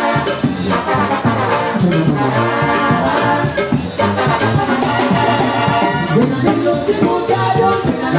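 Live Mexican banda playing: brass and clarinets carrying the tune over a sousaphone bass line and drums keeping a steady beat.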